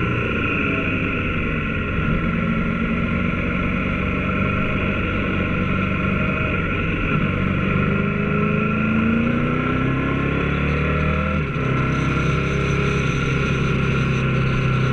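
Triumph Tiger 900 Rally Pro's inline three-cylinder engine running under way, heard from the bike with wind rushing past. The engine note climbs for a few seconds through the middle, then drops abruptly about eleven seconds in before settling again.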